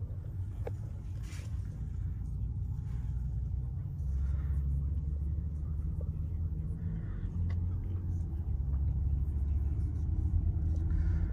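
Low road and tyre rumble heard from inside the cabin of a Mercedes S-Class as it drives itself and gathers speed. The rumble steps up in loudness about four seconds in.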